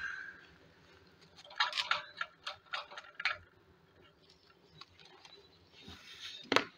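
Homemade Stirling engine being handled, its flywheel turned by hand: a quick, irregular run of light metallic clicks, then a single louder knock near the end.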